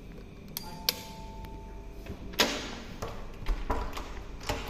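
Hotel room door being opened: sharp clicks, a short beep about half a second in, a loud clack about two and a half seconds in, then a few dull thumps.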